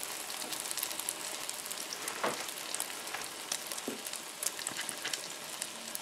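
Omelette frying in bacon grease on a Blackstone 17-inch electric griddle set to about 350°F: a steady sizzle with many small crackles.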